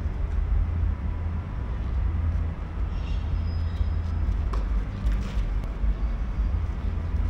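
Steady low outdoor rumble. Two faint sharp pops of racket strikes on a tennis ball come about four and a half and five seconds in.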